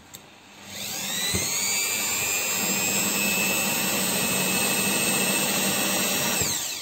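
Electric drill boring a pilot hole into a PVC window frame with a small twist bit. The motor whines up about a second in, runs steadily for about five seconds, then winds down and stops near the end.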